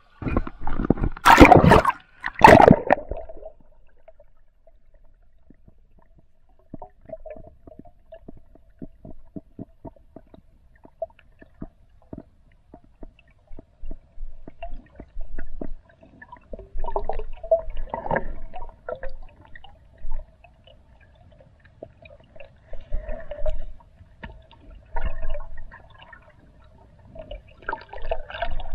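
Water splashing loudly as a spearfisher goes under in a canal. Then muffled underwater sound from a camera below the surface: faint clicks, a steady hum, and bursts of bubbling gurgles every few seconds.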